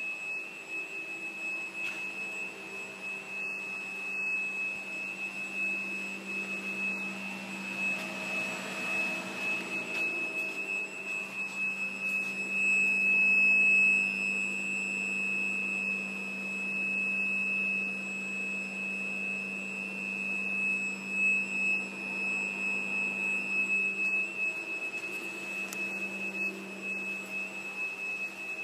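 A 2002 Volvo S80, switched off, giving off a steady high-pitched whistle: one pure tone held without a break, loudest about halfway through, with a fainter low hum beneath.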